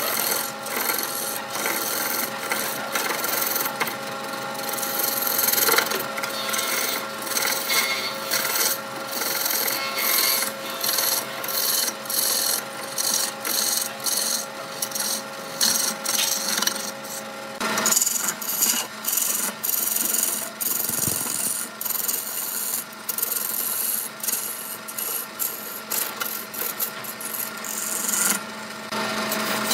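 Wood lathe turning a wooden blank while a hand-held turning chisel cuts it. A scraping, shaving hiss comes in many short passes as the tool is pushed in and drawn back, over the steady hum of the running lathe.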